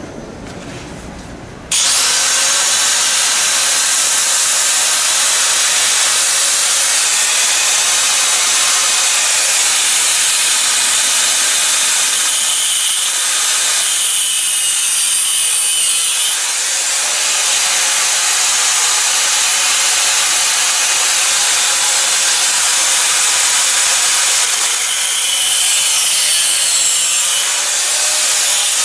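An angle grinder starts about two seconds in and runs steadily, its disc cutting the metal mounting tabs on a new windshield trim moulding with a loud, even grinding hiss. The sound eases briefly twice as the cut changes.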